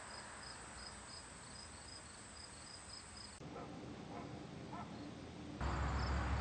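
Faint outdoor ambience of insects chirping in a quick, even rhythm. A louder low rushing noise comes in near the end.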